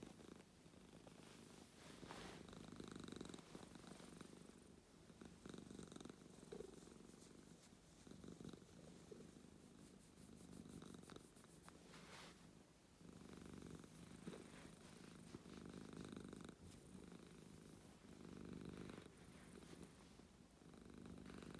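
Domestic cat purring quietly, the purr swelling and easing with each breath about every two seconds. A few small crackles show through now and then.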